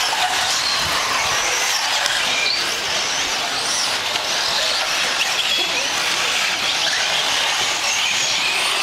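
Several 1/8-scale nitro RC cars running together, their small two-stroke glow engines making a high whine that keeps rising and falling in pitch as the cars accelerate and back off.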